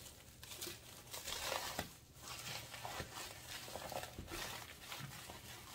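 Packing material crinkling and rustling in irregular handfuls, with a few light knocks, as drink bottles are lifted out of a shipping box.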